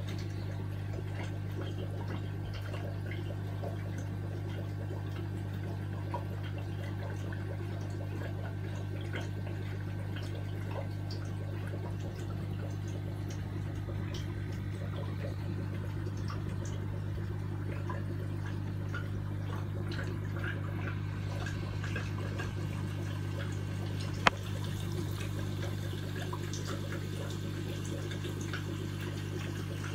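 Aquarium water bubbling and trickling over a steady low hum from the tank's equipment, with a single sharp tap about 24 seconds in.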